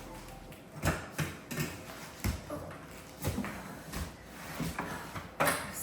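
Cardboard box and packaging being handled and pulled open: a series of irregular knocks and thumps, about seven, with rustling between them.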